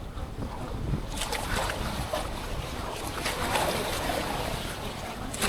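Wind rumbling on the microphone, with irregular splashing of sea water from about a second in.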